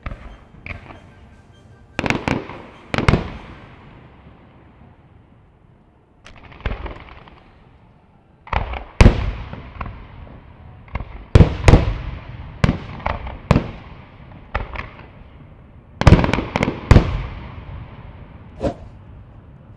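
Fireworks display: aerial shells bursting in a string of sharp bangs at irregular intervals, several in quick pairs and clusters, each trailing off in a fading echo. The bangs come thickest through the middle and again near the end.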